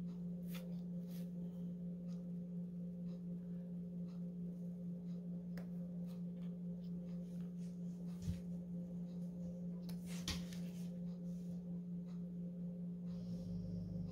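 A steady low hum holds one pitch throughout, with a few faint taps and ticks about 8 and 10 seconds in as small craft items are handled on the table.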